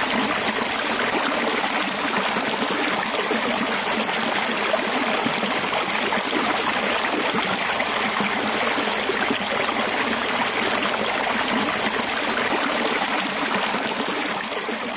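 Water rushing steadily through a small homemade hydroelectric turbine and gushing out into a narrow concrete channel. It fades out near the end.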